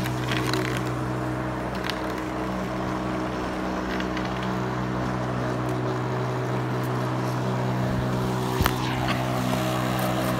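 Push lawn mower's small engine running steadily, with a few sharp clacks over it, the loudest near the end.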